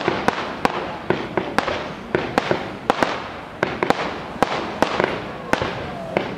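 Aerial fireworks bursting: a rapid, irregular run of sharp bangs, two or three a second, over a continuous crackling hiss.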